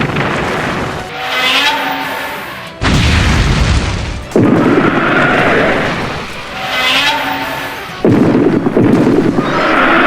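Toho-style kaiju battle sound effects: a heavy boom about three seconds in, more sudden loud hits near four and eight seconds, and pitched monster cries between them.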